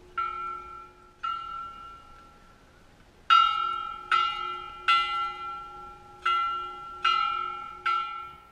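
Large hanging temple bell struck repeatedly: two strokes about a second apart, a pause of about two seconds, then six louder strokes roughly one every three quarters of a second, each ringing on with a clear tone that fades.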